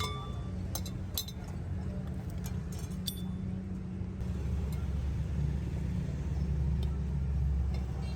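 Low engine rumble that grows stronger about four seconds in, with a few light metallic clicks and taps in the first three seconds.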